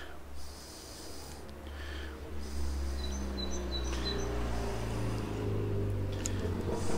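Street ambience: a low engine rumble that swells from about two and a half seconds in and holds, with small birds chirping over it and a single sharp click near the end.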